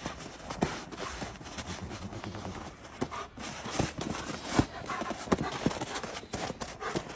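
A dog in winter boots stepping on packed snow and ice: irregular crunching steps and knocks, with a louder knock about four and a half seconds in.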